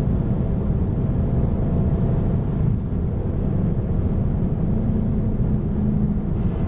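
Car driving at a steady speed: a steady low engine and road rumble with no revving.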